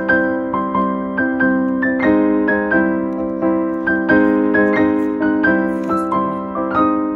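Background music: a piano-like keyboard playing an evenly paced melody, each note struck and then fading.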